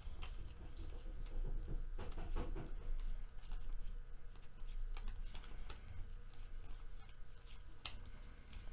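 Baseball cards being flipped through by hand: scattered faint flicks and slides of card stock against card stock, over a low steady hum.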